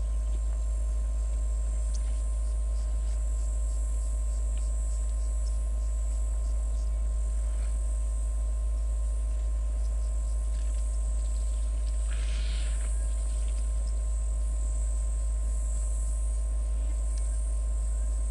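Steady high-pitched chirring of insects in the bush, over a constant low hum. A brief burst of noise about twelve seconds in.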